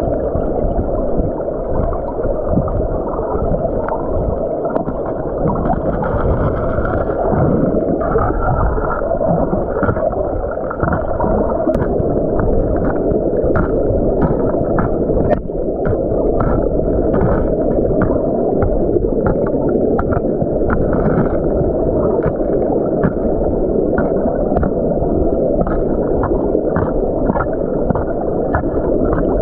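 River water heard underwater: a steady, muffled rush and gurgle, with frequent sharp clicks of gravel and stones knocking together as the river bed is worked by hand.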